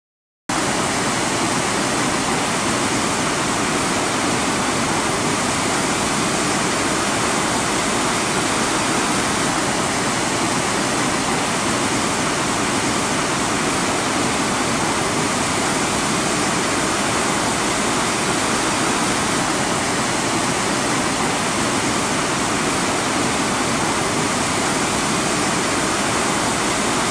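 Wide river waterfall pouring over a rock ledge into churning whitewater, a steady rushing roar. It cuts in suddenly about half a second in.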